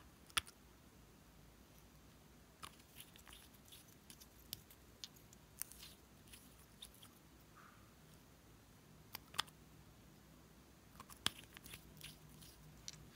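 Faint, scattered clicks and taps of hard plastic as a small cat-shaped nail polish bottle is handled and its cap pulled off, with sharper clicks just after the start, about nine seconds in and about eleven seconds in.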